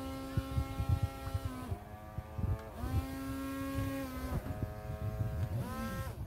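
Small electric motor of a homemade model boat whirring steadily, its pitch sagging and climbing back three times, over a low uneven rumble.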